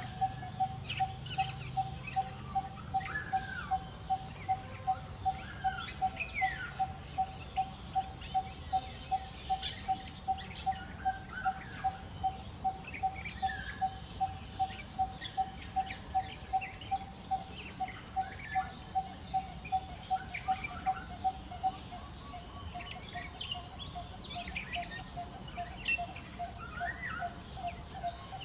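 Birds calling: one bird repeats a single short note, even in pitch, about two and a half times a second, over scattered chirps and whistles of other birds. About 22 seconds in the repeated note becomes fainter and slightly lower.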